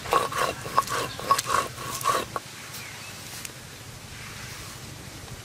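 Stone muller grinding dried red chilies on a flat grinding stone (sil-pata): rapid rhythmic scraping strokes, about four a second, that stop about two and a half seconds in, leaving only low steady background noise.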